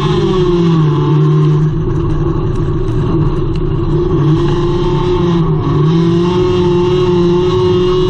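Engine of a front-wheel-drive hornet-class dirt track car racing, heard from inside its cabin. The revs dip and climb again twice, about a second in and about five seconds in.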